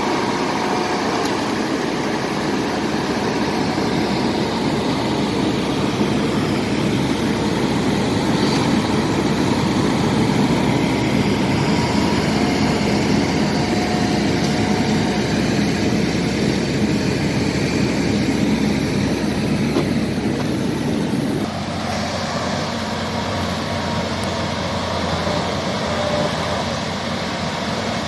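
Diesel engines of Komatsu D70LE crawler bulldozers running hard under load while dragging a very large log. About three-quarters of the way through, the sound changes abruptly to a quieter, steadier engine note.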